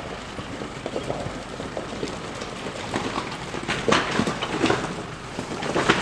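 Jeep Wrangler driving over a frozen, rocky creek bed, with ice and stones crackling and crunching under its tyres. The crunching gets louder from about three seconds in and again near the end.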